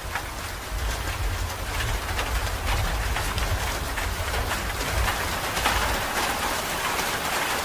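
Heavy rain falling and splashing on wet paving, a steady hiss with a low rumble underneath.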